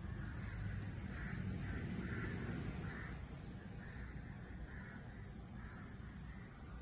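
A crow cawing over and over, a series of short harsh calls, with a steady low rumble underneath.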